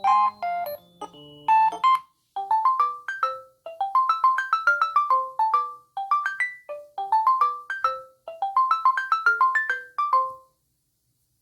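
LG V30 ringtones: one melody with a low bass line ends, then after a short pause about two seconds in a new ringtone plays a phrase of quick rising note runs four times before stopping near the end.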